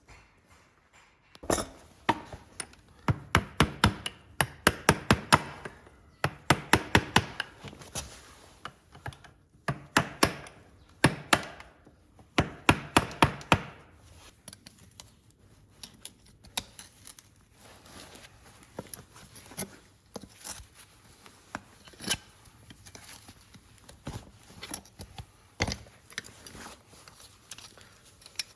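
Hoof-care tools knocking sharply on a horse's hoof in quick runs of several strikes a second, then slower, scattered clicks and knocks during the second half.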